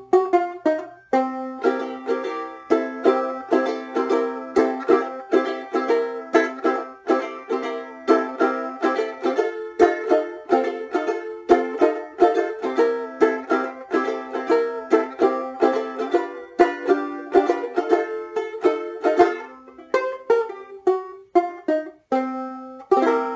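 Kmise tenor-scale banjolele (banjo ukulele), freshly strung and tuned reentrant G-C-E-A, played solo with a banjo sound: a steady run of plucked notes and chords, several a second. Near the end the notes thin out and it finishes on a chord left to ring.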